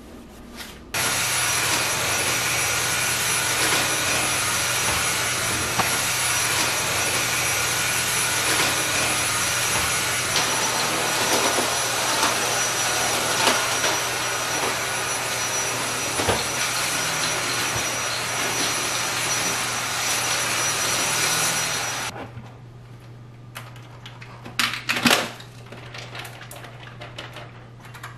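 Vacuum cleaner switched on about a second in, running steadily with a motor hum and a thin high whine for about twenty seconds, then switched off abruptly.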